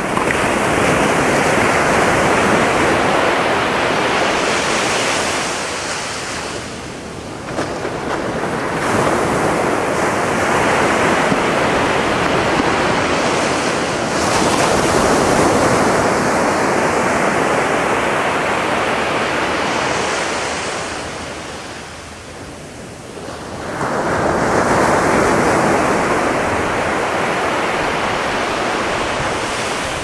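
Atlantic surf breaking on a sandy beach, waves crashing and washing up the shore in long swells. The rush eases twice, about a quarter of the way in and again about three-quarters in, then builds again as the next wave breaks.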